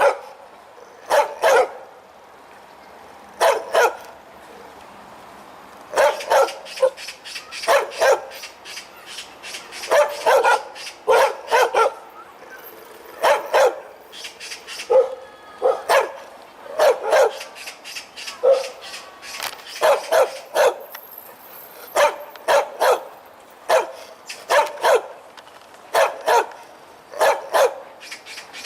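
A dog barking loudly and repeatedly, in quick runs of two to four deep, full-throated barks with short pauses between, and a faint whimper in a longer pause a few seconds in.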